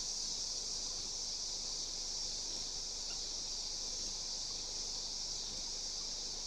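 A steady, high-pitched chorus of insects such as crickets, an even buzz with no breaks.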